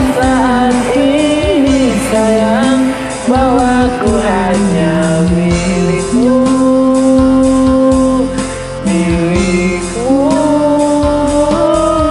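Singing over a karaoke backing track with a steady beat, with several long held notes.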